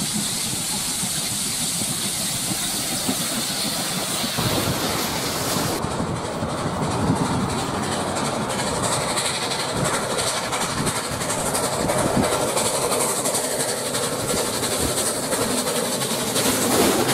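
Steam locomotives passing at speed, first the 35-class 4-6-0 No. 3526, then the 32-class 4-6-0 No. 3265, with hissing steam and wheel-on-rail clatter. The sound changes abruptly about six seconds in, where one clip cuts to the next.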